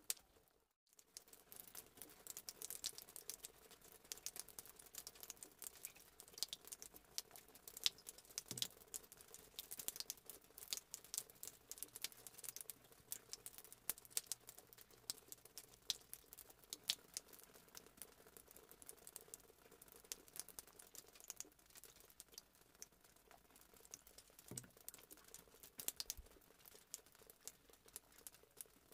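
Faint, irregular clicking and crackling, with two soft knocks, as the baked cake in its aluminium tube pan is handled and a knife works around the pan.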